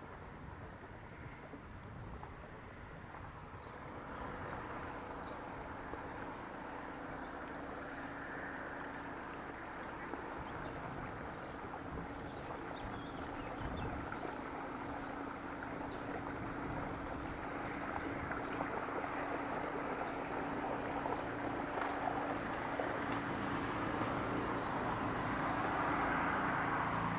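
A boat's engine running steadily with a low hum, growing louder toward the end as the boat draws nearer.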